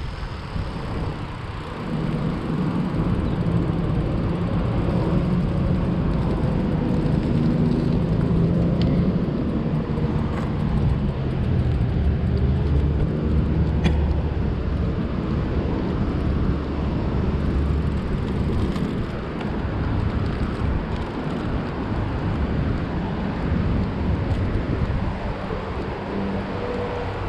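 Road traffic: motor vehicle engines running and passing close by, with a continuous rush of road noise.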